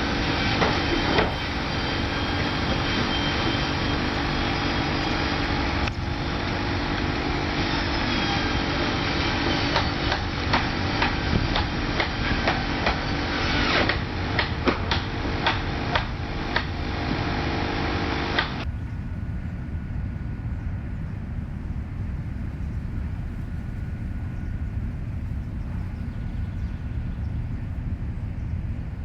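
Heavy machinery engine running steadily, with a run of sharp clanks and knocks near the end of this part. About two-thirds of the way through it cuts abruptly to a lower, duller engine rumble.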